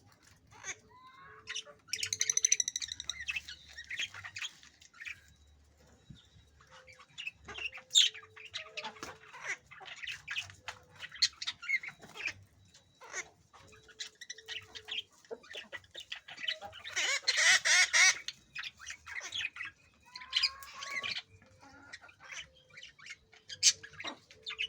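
Parrots squawking and chattering, with short calls and clicks throughout. A harsh squawk comes about two seconds in, and a longer, louder one about seventeen seconds in.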